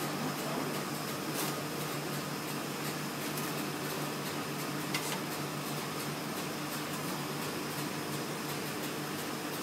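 Komori LS 529+C sheetfed offset press and its equipment giving a steady mechanical whir with a low hum, with one small click about five seconds in.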